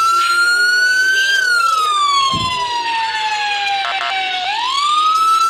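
Electronic fire-engine wail siren from the Code3 siren app. The tone climbs slowly to a high peak, glides down over about three seconds, then sweeps quickly back up near the end.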